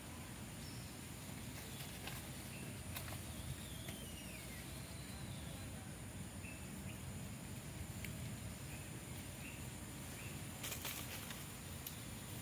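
Outdoor ambience: a steady low rumble with faint, scattered high chirps and a short falling trill, plus a few clicks, the clearest near the end.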